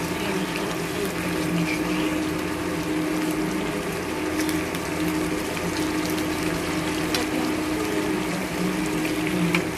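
Milkfish simmering in a tomato and black bean sauce in a frying pan: a steady bubbling sizzle, with a few sharp clicks of tongs against the pan. A steady low hum runs underneath.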